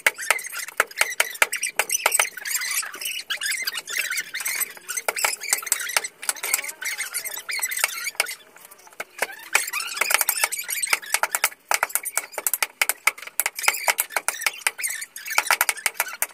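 Fast-forwarded kitchen prep: a dense, irregular clatter of knives chopping chicken on cutting boards, mixed with high-pitched, sped-up squeaky chatter.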